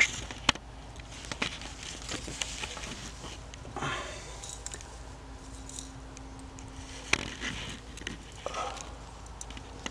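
Hands rummaging through dry attic debris and handling pieces of charred wood: scattered rustles with a few sharp clicks and knocks, the loudest at the very start and about seven seconds in.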